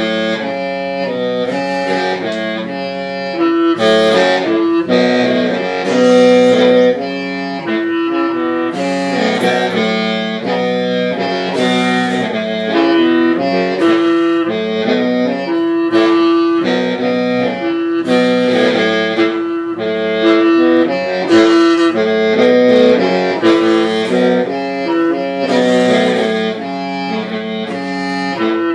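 Hmong qeej, the bamboo free-reed mouth organ, playing a melody of held notes that step from pitch to pitch over a steady low drone.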